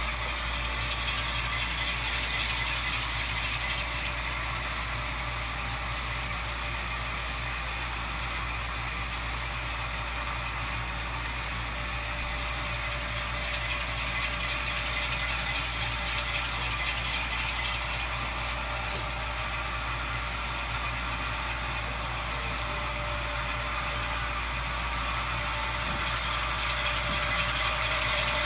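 HO scale ScaleTrains GE ES44AC model locomotives' ESU LokSound 5 sound decoders playing a steady diesel engine sound through their small speakers, with the rattle of model container cars rolling over the track. It grows a little louder near the end as a locomotive comes close.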